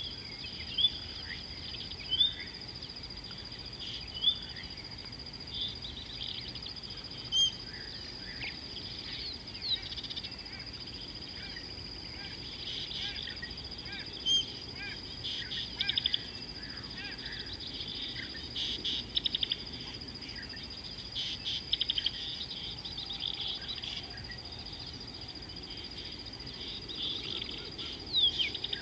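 Bush ambience: a steady high-pitched insect drone with short bird chirps and calls scattered through it, a few of them louder and sharper than the rest.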